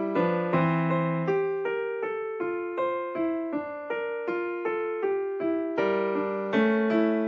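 Background piano music: a steady, even run of single notes, about two or three a second.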